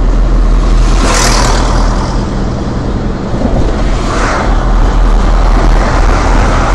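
Steady engine hum and road noise of a car being driven, heard from inside it. Two other vehicles swell past, one about a second in and one about four seconds in.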